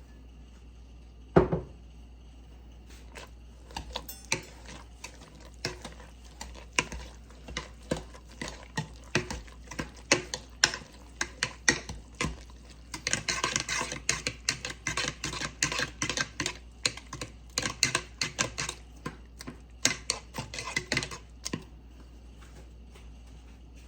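A mixing utensil knocking and scraping against a bowl as sweet potato casserole ingredients are worked together by hand: one sharp knock about a second in, then a long run of quick irregular clicks, thickest with scraping in the middle, stopping near the end.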